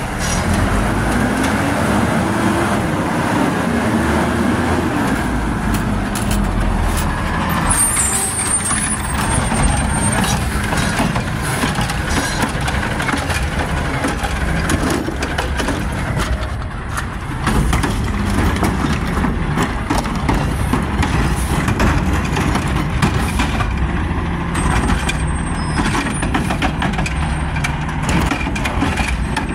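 Garbage truck diesel engine revving hard while the automated side-arm loader works, the engine pitch climbing and falling in the first few seconds, then running loud and steady. A brief thin high hiss is heard twice, about a quarter of the way in and near the end.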